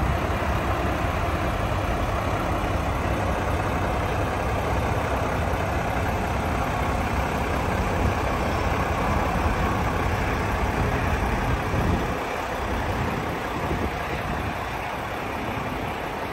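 Mack MP8 inline-six diesel of a 2017 Mack CXU613 day cab idling steadily, with a low rumble that eases off somewhat about 12 seconds in.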